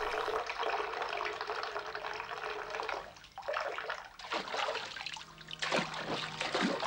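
Water rushing steadily from a bathtub tap; after a dip about three seconds in, irregular splashing as someone climbs into the filling bath.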